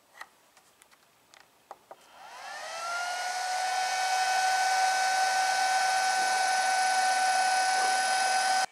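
A few light clicks of keypad buttons on a variable frequency drive, then an old three-phase electric motor fed by the drive spinning up: a whine that rises in pitch and then holds steady, over a steady rushing hiss. It cuts off suddenly near the end.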